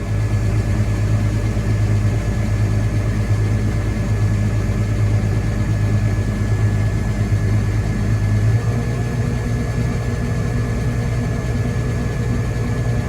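A vehicle engine running steadily with a low hum that shifts slightly in pitch about eight and a half seconds in.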